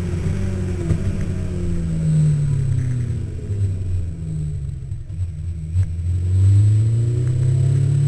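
Honda CBR1100XX Super Blackbird's inline-four engine under way. Its note falls for about five seconds as the engine slows, then climbs steadily as it pulls hard again near the end.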